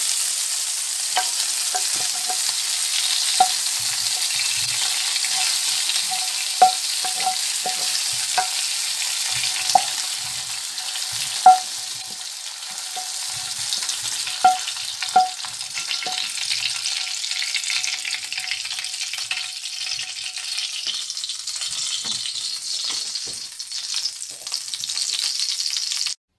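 Hot oil sizzling in a frying pan of cubed beef liver just taken off the heat, with irregular sharp knocks of a wooden spatula against the pan as the pieces are scraped out onto a plate. The sizzle cuts off abruptly near the end.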